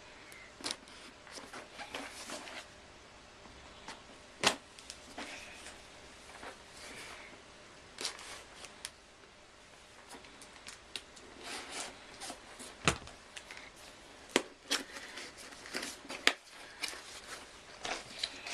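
A cardboard box being opened and its packed contents handled: irregular rustling with scattered sharp clicks and knocks, the loudest about four and a half, thirteen and sixteen seconds in.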